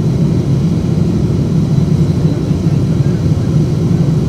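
Steady, deep cabin drone of an Airbus A350-900 climbing after takeoff, heard inside the cabin from a window seat: its Rolls-Royce Trent XWB engines and the air rushing past the fuselage make one even roar with no changes.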